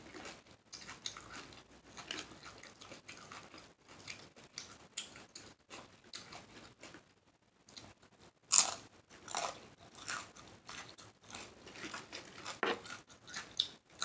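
Close-miked mouth chewing and lip-smacking on a mouthful of shrimp salad: a steady run of short wet clicks and smacks, with a brief lull a little after seven seconds and louder smacks about eight and a half and twelve and a half seconds in.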